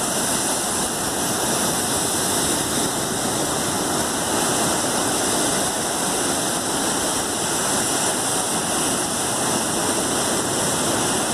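Heavy ocean surf: a steady, unbroken rush of big breaking waves and churning whitewater, with no single crash standing out.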